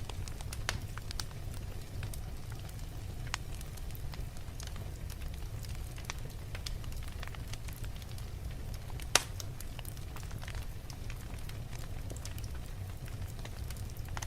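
Wood fire burning in a fireplace: a steady low rumble with scattered sharp crackles and one loud pop about nine seconds in.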